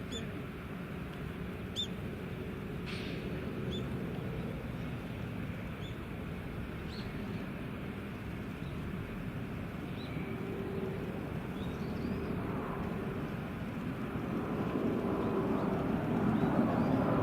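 Outdoor ambience with scattered short bird chirps over a low steady rumble; a jet aircraft's engine noise swells in the last few seconds.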